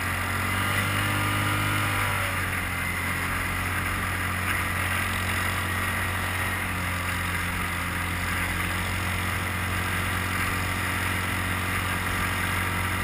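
Quad bike (ATV) engine running steadily under way, a constant low drone that wavers briefly in pitch during the first couple of seconds, heard from aboard.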